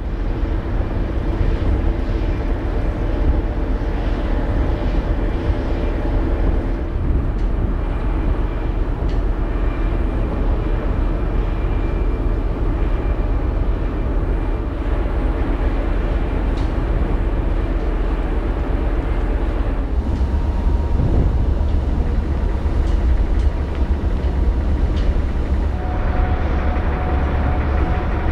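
Ferry's engines and machinery running: a steady low rumble with a constant hum. Around two-thirds of the way through the rumble deepens, and near the end a steady higher tone joins it.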